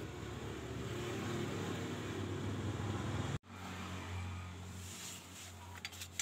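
Steady mechanical hum of running machinery, breaking off abruptly about three and a half seconds in, followed by a lower steady hum and a few light clicks near the end.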